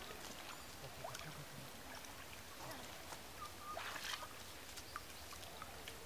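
Faint splashing and sloshing of shallow pond water as hands work in it, with a short louder splash about four seconds in.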